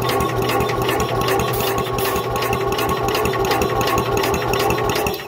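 Small mini bike engine being cranked over by a starter motor: a steady whine over a fast, even chugging. It turns over but does not fire, and whether it has spark is in doubt. It stops abruptly at the very end.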